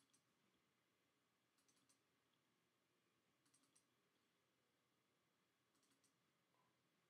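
Faint computer mouse clicks in quick clusters of three or four, about every two seconds, over near silence.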